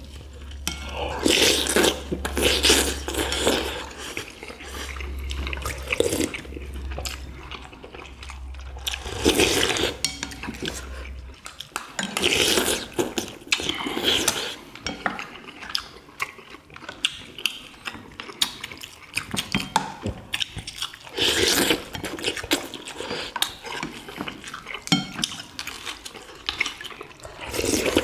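Close-up eating sounds of a family eating boiled chicken and broth: spoons clinking on ceramic bowls, wet slurping of broth and chewing, in a run of irregular short clicks and smacks. A low steady hum underneath stops about eleven seconds in.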